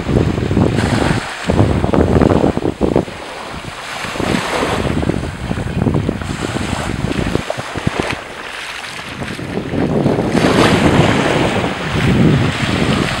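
Wind buffeting the microphone in gusts, easing briefly past the middle, over small waves lapping on a sandy beach.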